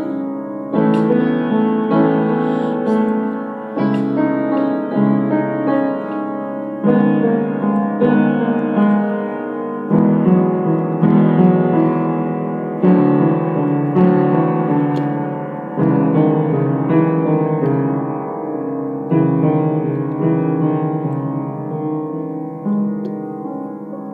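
Solo piano playing an instrumental passage, chords struck about once a second and left to ring and fade, growing gradually softer towards the end.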